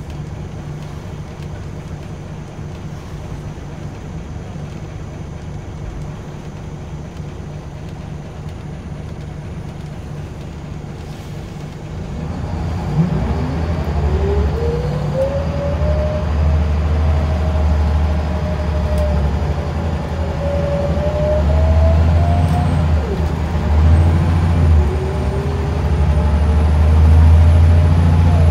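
Scania L94UB bus engine heard from inside the passenger saloon, running quietly and steadily at first. About twelve seconds in it grows louder as the bus pulls away and accelerates: a deep rumble with a whine that climbs in pitch, levels and falls, then climbs again near the end.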